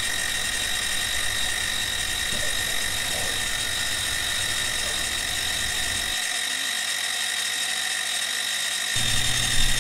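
CNC-converted benchtop milling machine cutting metal with a 3/8-inch end mill at about 3,100 RPM on a light finishing pass: a steady high-pitched whine over the hiss of the cut.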